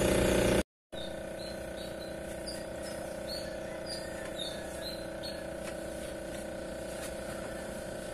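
A louder steady hum cuts off abruptly under a second in. After a moment of silence, a quieter steady electric hum follows, from aquarium air pumps running in a room of fish tanks. For the first few seconds, faint short high-pitched chirps repeat over it.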